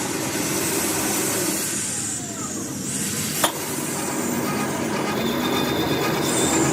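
Steady mechanical running noise with a single sharp knock about three and a half seconds in.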